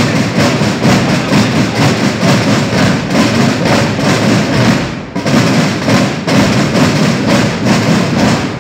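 A large marching drum corps of snare and bass drums playing a loud, steady beat together, with brief breaks about five and six seconds in.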